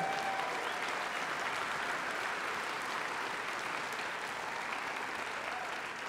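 Audience applauding steadily, easing off slightly toward the end.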